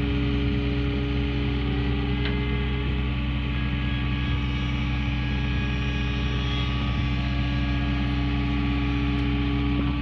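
CT322 compact track loader's diesel engine idling steadily, with a faint knock about two seconds in.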